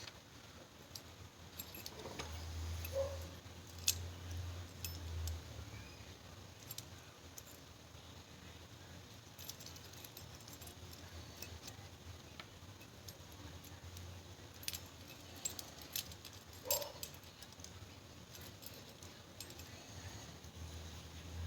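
Scattered small metal clicks and clinks as a zinc mortise lock cylinder and its small parts are handled while it is being taken apart.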